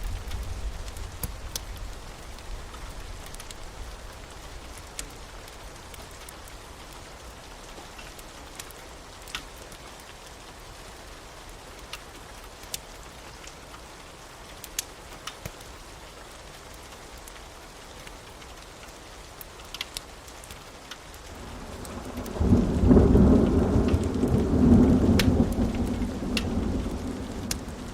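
Steady rain with scattered sharp drips, then a long low rumble of thunder rolling in a little over 20 seconds in, loudest for a few seconds before easing off.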